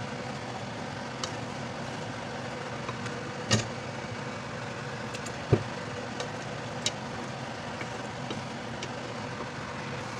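Pork pieces frying in oil in a wok: a steady sizzle with a low hum under it. A wooden spatula knocks against the pan a few times, loudest about three and a half and five and a half seconds in.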